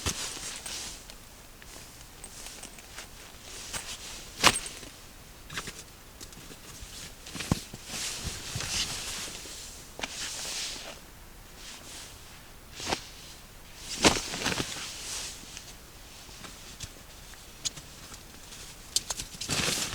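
A person moving about in snow: irregular crunching and rustling with scattered sharp clicks and knocks. The loudest knocks come about four and a half and fourteen seconds in.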